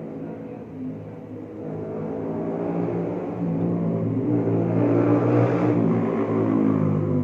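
A motor vehicle engine running and growing louder over the first few seconds, then staying loud.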